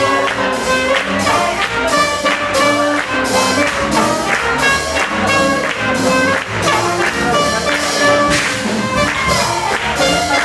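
Swing jazz with brass horns over a steady beat of about two beats a second.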